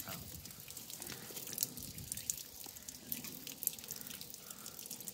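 Footsteps crunching on a gravel path, a sharp gritty click at about walking pace, over faint outdoor background hiss.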